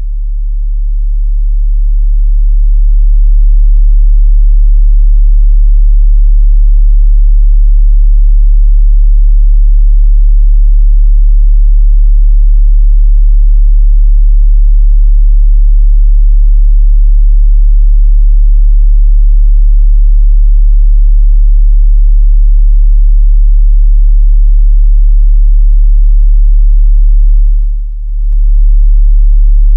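A loud, steady, very deep drone tone that fades in over the first few seconds and holds without change. It dips briefly near the end.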